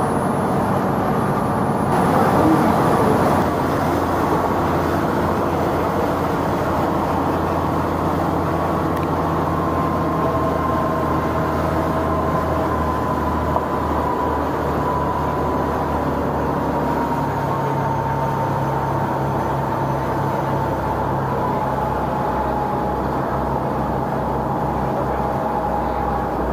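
Passenger boat's engine running steadily, a low drone with a faint whine that slowly falls in pitch and an engine note that shifts slightly past the middle. A brief louder rush of noise comes about two to three seconds in.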